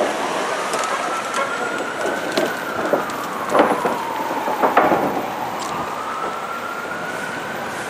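Fire truck siren in a slow wail, rising, falling, then rising again, over steady city traffic noise. Two short, sharp loud sounds come about three and a half and five seconds in.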